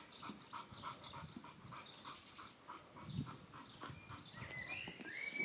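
English bull terrier panting quickly and evenly, faint, about five breaths a second.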